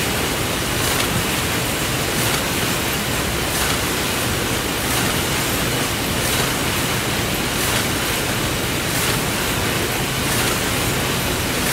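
Automatic sewing machine line for kraft paper bags running: a steady, even machine noise, with a faint tick about every second and a half.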